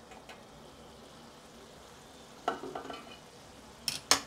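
Potato and cauliflower sizzling faintly in a covered steel pan over a low flame. About two and a half seconds in, a short clatter, then two sharp metal clinks near the end as the water-filled steel plate covering the pan is lifted off.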